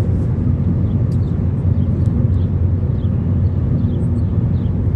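Steady low rumble of a moving vehicle: engine, tyre and wind noise with no change in pace.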